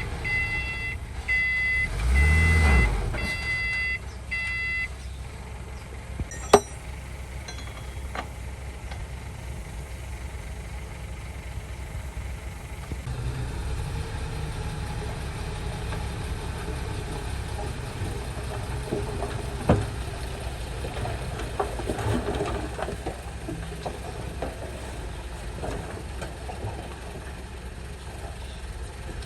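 Reversing alarm on heavy earthmoving machinery beeping about twice a second, with a louder surge of diesel engine rumble about two seconds in. The beeping stops about five seconds in, leaving the diesel engine running steadily, with a few sharp knocks.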